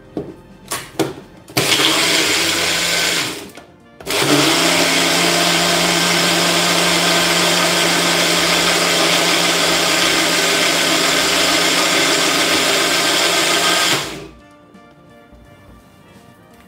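Bullet-style personal blender blending beetroot puree and yogurt into buttermilk. A couple of clicks as the jar is seated on the base, then a short run of about two seconds, a brief pause, and a steady run of about ten seconds that cuts off suddenly.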